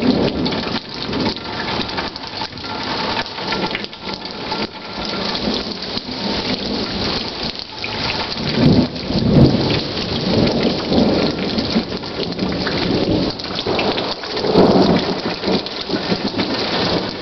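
Steady rain with thunder rumbling in swells, loudest about halfway through and again near the end.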